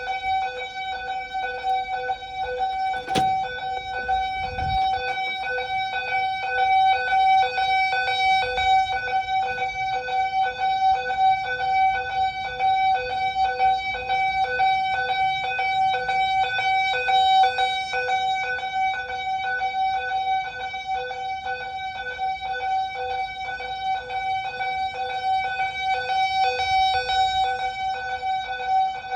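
Simplex fire alarm sounding a continuous, rapidly pulsing steady-pitched alarm tone during an alarm test. A brief sharp knock cuts through it about three seconds in.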